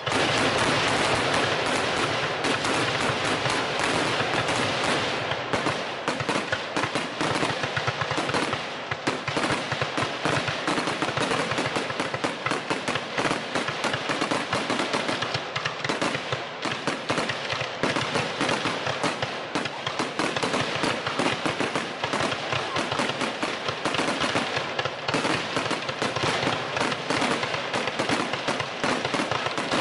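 Aerial fireworks shells launching and bursting in a rapid, unbroken barrage, many bangs and crackles a second.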